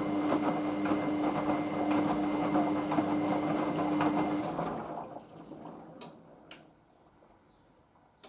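Hoover washing machine running mid-rinse with a steady hum and rattle, which stops about four and a half seconds in. Two sharp clicks follow in the quiet.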